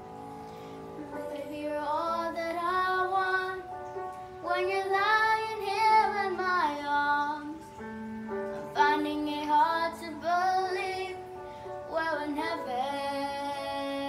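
A young girl singing a slow melody in long held phrases over an accompaniment of sustained chords, her voice coming in about a second in and pausing briefly three times.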